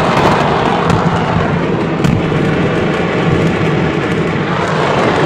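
A stock of fireworks going off all at once in an explosion: a dense, continuous crackle of many bangs and pops, with sharper reports about one and two seconds in.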